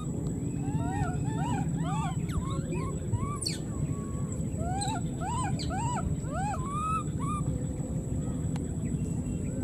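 Baby monkey crying: a rapid run of short rising-and-falling cries, a few a second, that stops about seven seconds in, over a steady low rumble.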